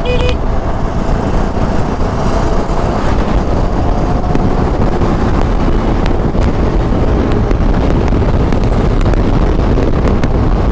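Steady rush of wind over the microphone mixed with a scooter running at highway speed and the tyre and traffic noise around it. A rapid electronic beeping cuts off just after the start.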